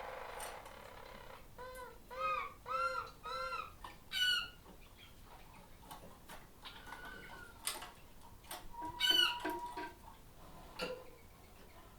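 Small cage birds calling: a run of four short, arching chirps, then a higher call and another a few seconds later, with scattered sharp ticks and clicks of birds moving about the cages.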